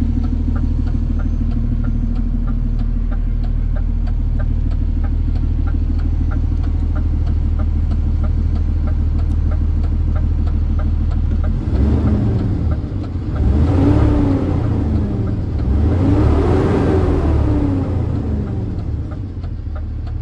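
DAF CF 260 truck's six-cylinder diesel engine, heard from the cab, idling steadily and then revved twice about halfway through. Each time the pitch rises and falls back to idle.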